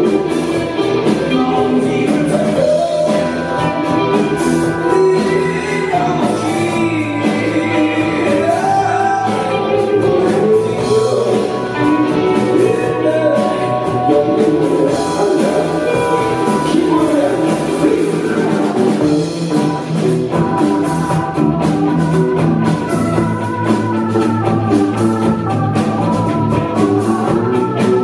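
Live rock band playing a song, with guitar, bass and drums and a singing voice over them.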